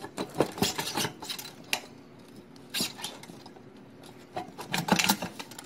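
Sheet-metal clinks and rattles of a Kerona WKH-22G kerosene heater's burner and wick assembly being worked loose and lifted from the tank. A flurry of clatters comes at the start, a few single clicks follow, and another flurry comes near the end.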